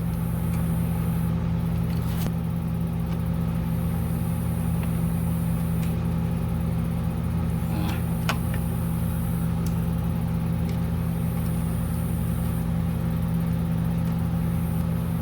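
A steady low mechanical hum, with a couple of faint short clicks about two seconds and eight seconds in.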